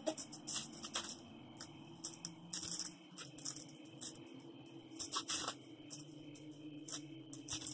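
Plastic candy wrapper crinkling as it is pulled and torn open by hand, in irregular crackles and rustles.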